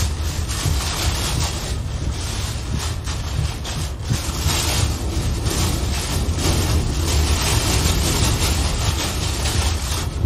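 Hurricane wind blowing with driving rain, buffeting the microphone with a heavy low rumble; the noise surges and eases in gusts.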